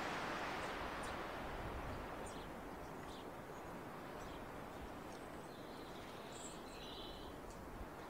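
Faint, short, high bird chirps scattered over a steady rushing background noise that eases over the first few seconds.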